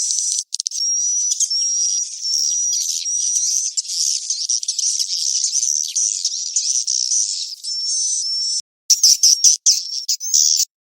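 Swiftlet roosting-call recording ('suara inap'), the lure sound played in swiftlet nest houses: dense, high twittering and chirps with everything below the high range filtered out, and a brief break near the end.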